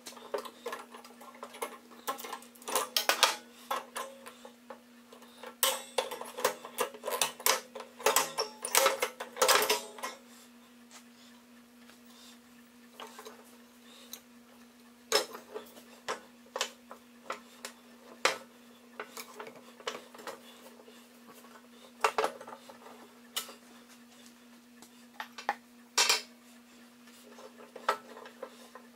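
Metal mower-deck parts clinking and knocking as they are handled and fitted by hand, a dense run of clinks through the first ten seconds, then scattered ones. A faint steady hum runs underneath.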